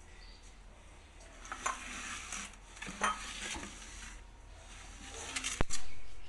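Metal parts of a stainless steel dish rack scraping and clinking as they are handled and fitted together, with a sharp click about five and a half seconds in.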